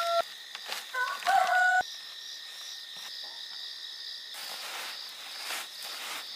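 A steady chorus of night insects chirring, with a loud, short, wavering pitched call about a second in that cuts off abruptly. Near the end come soft rustles of tea leaves being kneaded by hand on a woven bamboo tray.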